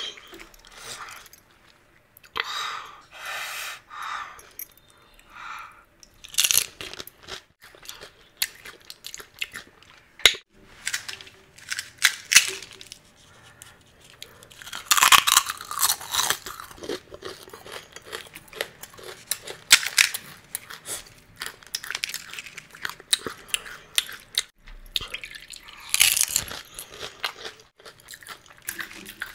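Pani puri being eaten close to the microphone: crisp, hollow puri shells crunching in repeated sharp bites, with chewing in between.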